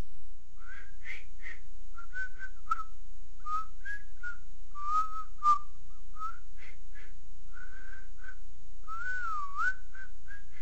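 A person whistling a tune in short, quick notes and little slides, with a longer wavering note near the end.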